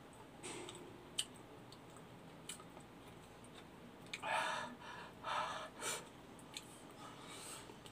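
A person eating with his fingers: faint clicks of chewing and handling food, then three loud breathy sounds from the mouth and nose between about four and six seconds in, the first the loudest.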